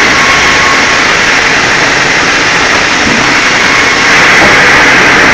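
Log carriage band sawmill running: loud, steady machine noise from the band saw and the carriage feeding a log toward the blade, with a shrill band over a low rumble. It grows slightly louder about four seconds in, as the log reaches the blade.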